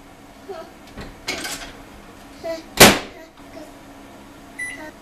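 Knocks and taps at an over-the-range microwave, the loudest a single sharp knock about three seconds in, then one short electronic keypad beep near the end.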